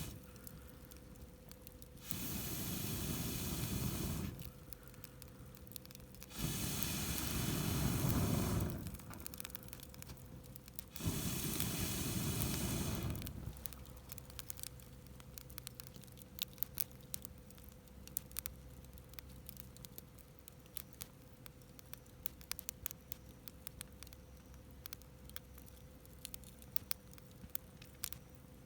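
Three long blows of air through a fire-blowing pipe into a wood campfire, each a rushing whoosh of about two seconds. After them the fire crackles with many small sharp pops.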